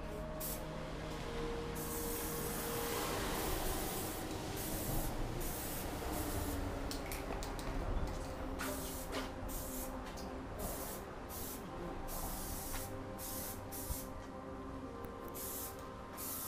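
Aerosol spray-paint can hissing as paint is sprayed onto a scooter handlebar: one longer spray at first, then many short bursts starting and stopping.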